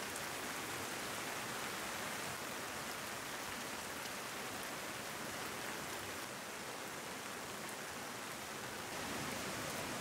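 Steady rain falling in a forest, an even hiss with faint scattered drop ticks, a little louder near the end.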